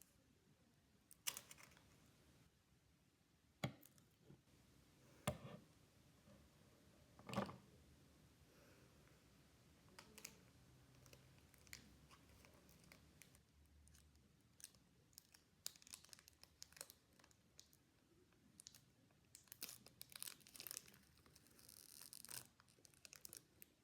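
Faint handling of Pokémon trading cards and pack wrappers: scattered soft rustles, slides and small clicks, a few louder ones in the first eight seconds and a busy run of quick little ticks near the end.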